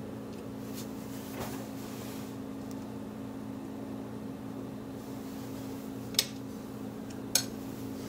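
Metal pliers clinking against a small steel saucepan and the solidified bismuth as crystals are picked out. There are a few faint ticks early and two sharp clinks about six and seven seconds in, over a steady low hum.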